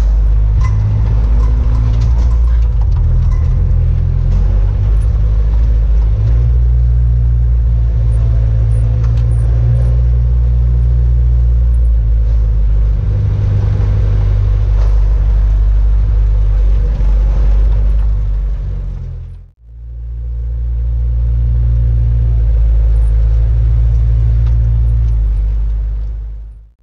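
Bobcat S100 skid-steer loader's small three-cylinder diesel engine running under working load, heard from inside the cab. Its level and pitch shift as the machine drives and works the bucket. The sound cuts off briefly about two-thirds of the way through.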